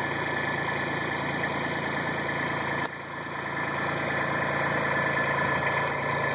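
A steady mechanical hum, like a motor or engine running, with a thin high whine over it. It drops suddenly about three seconds in, then builds back up over the next couple of seconds.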